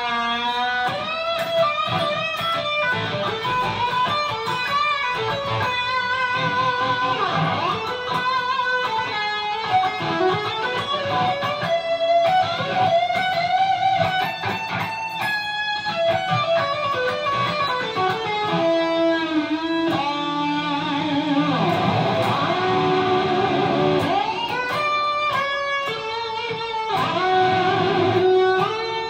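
Overdriven electric guitar played through a Line 6 Helix modelling a Marshall JCM 800 amp and a Greenback 4x12 cabinet: improvised lead lines with held notes, string bends and vibrato.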